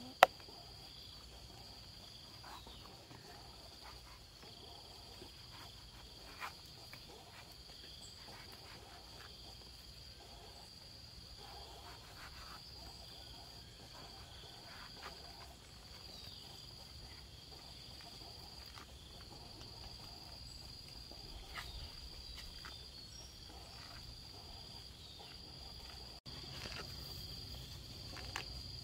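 Insects chirring in a steady, high-pitched drone, with faint scattered knocks and one sharp click just after the start.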